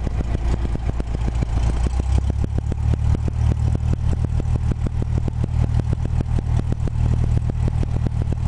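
Cessna 172 Skyhawk's piston engine and propeller running at low taxi power, heard from inside the cabin: a steady low drone with rapid, even pulses.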